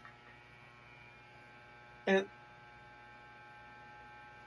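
Steady low electric hum, with one short vocal sound from a person about two seconds in.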